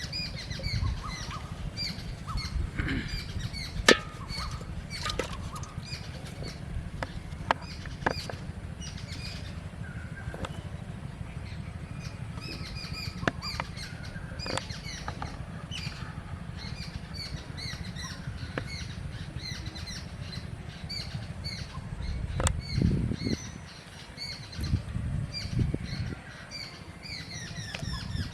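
Small birds chirping over and over, with a few sharp clicks scattered through and a low rumble that swells twice near the end.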